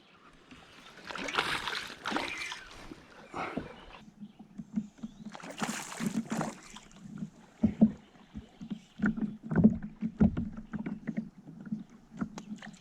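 Water splashing and sloshing around a kayak, with irregular swells of noise and scattered short knocks and clicks.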